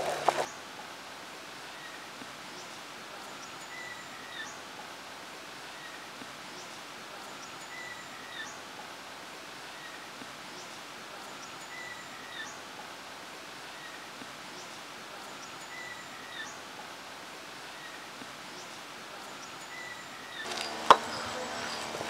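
Faint outdoor ambience: a steady low hiss with short, high chirps that come in pairs about every four seconds. Near the end louder sound returns, with one sharp knock about a second before the end.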